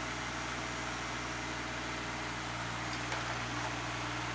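JCB 8014 CTS mini excavator's diesel engine running steadily while the machine digs, with a faint click about three seconds in.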